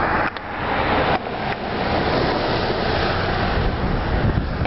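Steady rushing noise of storm wind buffeting the microphone, with brief dips about a third of a second and a second in.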